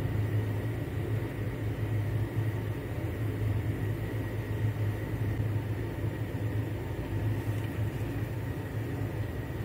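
Steady low hum with a rushing noise of kitchen machinery, unchanging throughout, with a faint high whine over it.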